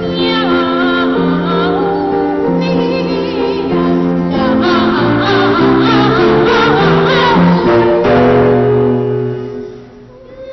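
Two boy sopranos singing a duet with grand piano accompaniment, the voices wavering with vibrato over steady piano chords. The music breaks off briefly near the end, then a voice comes back in on a held note.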